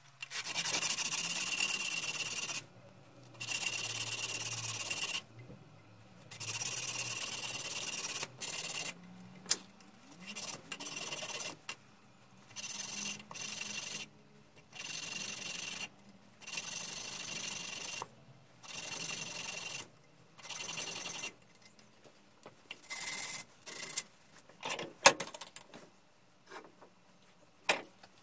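A strip of abrasive cloth is drawn rapidly back and forth around the steel T-handle and screw of a small Stanley 742 clamp-on vice, shoe-shine style, polishing them. The rubbing comes in bouts of a second or two with short pauses. Near the end the strokes are shorter and broken, with one sharp knock.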